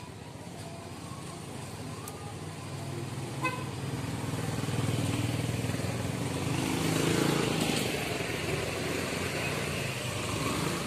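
A motor scooter passes close by, its engine growing louder to a peak about seven seconds in and then fading. A short horn beep sounds about three and a half seconds in.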